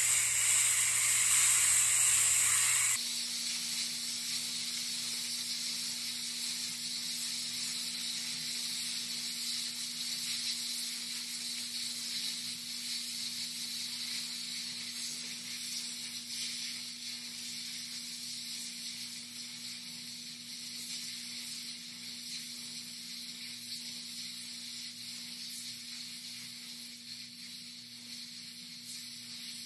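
Compressed air hissing steadily out of an air compressor tank's opened valve, slowly fading as the tank pressure drops. For about the first three seconds a low motor hum from the air compressor runs under the hiss, then cuts off suddenly.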